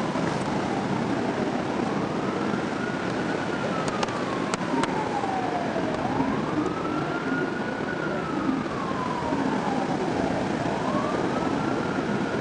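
Emergency vehicle siren in a slow wail, one tone rising and falling about every four to five seconds, three times, over a steady rushing background noise.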